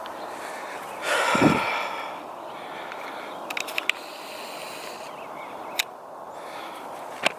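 Shooting a 9mm handgun at a laptop: a loud blast about a second in, then a quick run of small clicks and two single sharp cracks later on.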